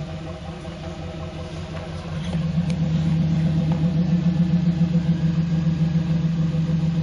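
Off-road rock crawler's engine running under load on a ledge climb, getting louder about two seconds in and holding steady.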